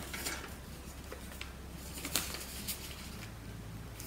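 Plastic zip envelopes and paper banknotes being handled: soft rustling with a few short, sharp crinkles, over a faint steady low hum.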